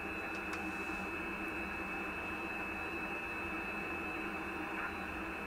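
Steady band-noise hiss from the speaker of an Icom IC-756PRO III transceiver receiving single-sideband on the 17-metre band, with no station coming through. There is a faint click about half a second in.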